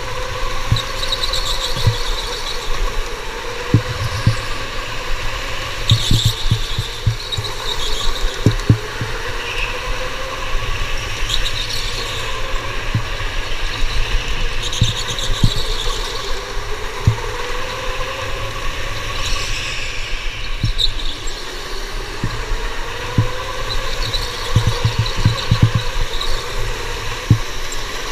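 Electric indoor go-kart driven round the track: the motor's whine rises and falls again and again with speed, with short bursts of tyre squeal every few seconds through the corners and frequent low thumps from the kart.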